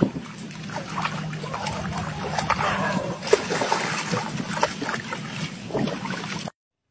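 Water splashing and sloshing as a dog wades and moves about in shallow water, in irregular splashes over a low steady hum. The sound cuts off suddenly near the end.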